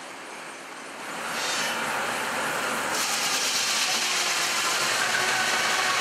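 Steam-powered sawmill head rig and carriage machinery running, growing louder about a second in, with a loud high hiss starting suddenly about three seconds in.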